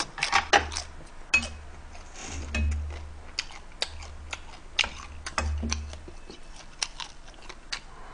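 Close-miked eating: chewing, with short sharp clinks and taps of a stainless ladle and chopsticks against the pot and dishes, scattered all through.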